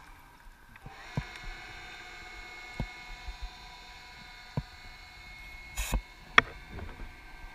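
Underwater recording: a steady, high whine of several tones sets in about a second in, with a few sharp clicks and knocks scattered over it, the loudest near the end.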